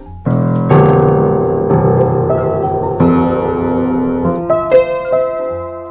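Piano music: a run of chords struck about every second, ringing on and fading toward the end.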